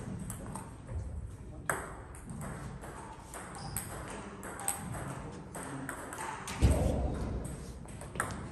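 Celluloid-type table tennis ball clicks and taps, with a few short high pings, between points in a table tennis hall; a quick run of ball strikes comes near the end as a rally starts. A dull low thud sounds about two-thirds of the way through.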